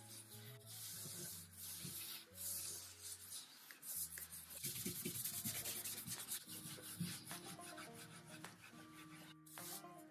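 Abrasive pad scrubbing over a wet mahogany dresser top in quick rubbing strokes, busiest about halfway through, with soft background music under it.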